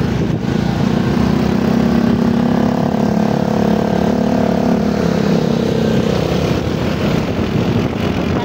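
Motorcycle engine running steadily at low road speed, with road noise. The engine note rises and falls a little about halfway through.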